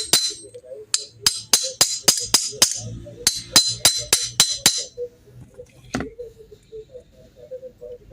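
Light metallic taps seating a new camshaft in its bearings in a Honda CD 70 cylinder head: two quick runs of ringing taps, about four a second, with a short pause between them, stopping about five seconds in, then one last tap about a second later.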